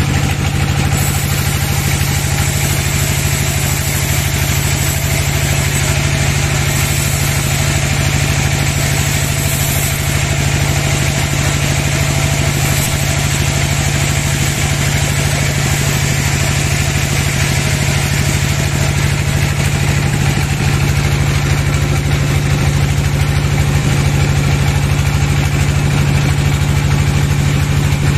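Band sawmill running steadily as its blade saws through a long teak log: a constant machine hum with a strong low drone.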